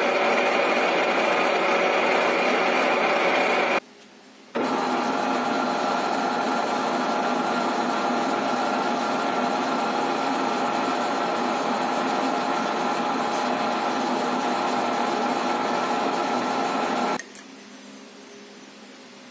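Metal lathe running steadily under cut, a steady mechanical hum with several steady tones, first while turning a small mild-steel bushing and, after a brief break about four seconds in, while a drill bit in the tailstock chuck bores into it. The machine stops about two seconds before the end.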